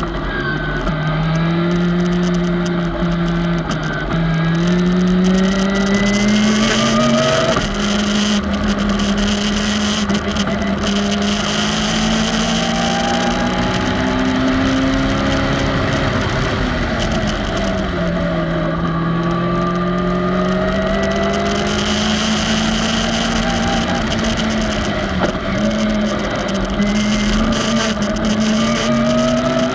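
Onboard sound of a Clubman race car's engine pulling hard through the gears. Its pitch climbs and drops back at each upshift, falls away under braking for a corner about halfway through, then climbs through the gears again. Air rushes past the open cockpit.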